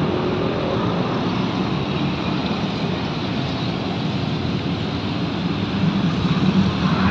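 Steady rumble of road traffic, swelling a little near the end.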